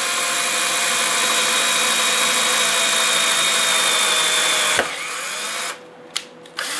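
Cordless drill spinning a 3 mm drill tap, a bit that drills and taps the hole in one pass, at a steady speed into the truck's frame rail. About five seconds in the motor eases off and it stops near six seconds, followed by a few light clicks.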